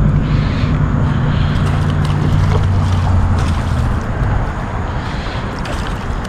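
Wind on the microphone with the low hum of a passing road vehicle's engine, which fades about four seconds in.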